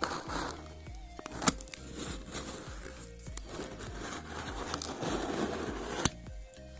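A blade slitting the packing tape along the seam of a cardboard box: a scratchy tearing sound, briefly at first and then in a longer, louder stroke in the second half, with two sharp clicks. Soft background music plays underneath.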